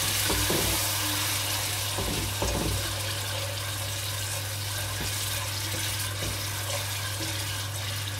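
Milk hitting a pan of hot ghee and sugar, sizzling and bubbling with a steady hiss as a milk-based sugar syrup starts to cook, with a few faint knocks in the first few seconds.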